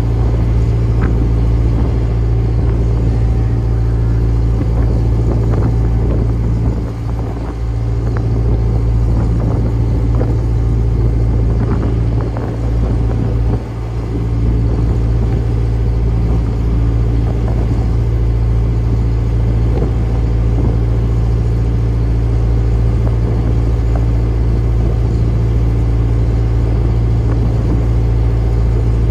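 Fishing boat's engine running steadily, a deep constant hum, with two brief dips in level about a quarter and nearly halfway through.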